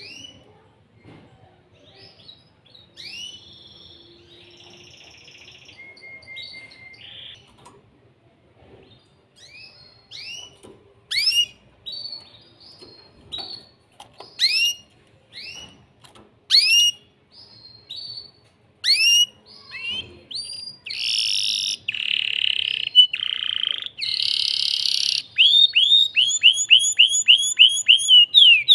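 Excited male canary singing: scattered, falling whistled notes that grow louder, then harsh buzzy phrases about two-thirds of the way through and a fast rolling trill of repeated notes near the end.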